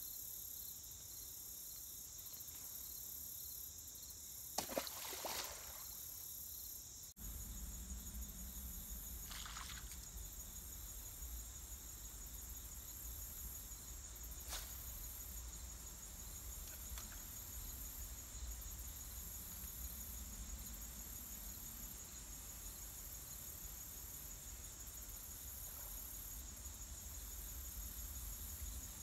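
Crickets and other insects chirring steadily in a high-pitched drone. A short, loud noisy burst comes about five seconds in, and from about seven seconds on a steady low rumble lies underneath.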